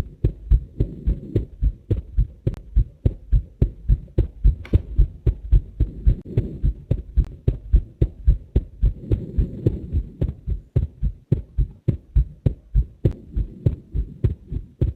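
A person's heart sounds: a steady, regular lub-dub heartbeat of soft low thuds, with a low hum between the beats.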